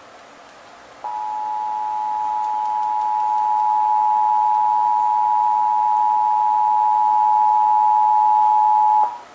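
Emergency Alert System attention signal: the dual 853 Hz and 960 Hz tone, held steady for about eight seconds and then cut off. It marks the start of an EAS broadcast, here the required monthly test.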